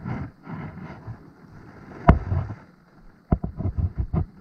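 Close handling noise from a hooked grouper being held and unhooked against a chest-mounted action camera. There is a single sharp knock about two seconds in and a quick run of dull thumps near the end, over a steady low rush.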